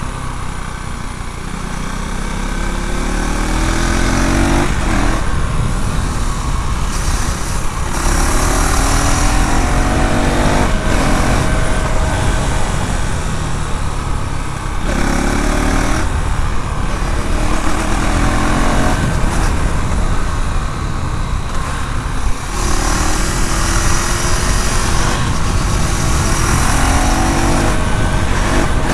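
KTM Duke 390 single-cylinder engine and exhaust under way, the exhaust note climbing in pitch several times as the throttle is opened and dropping back between the runs.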